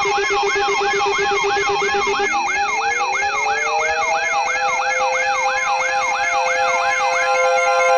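Layered electronic siren and alarm tones. A fast wailing siren sweeps up and down about three times a second over steady pulsing beeps. About two seconds in, a low pulsing tone stops as another siren tone rises in pitch and then holds steady. Near the end the sweeping stops, leaving only steady tones.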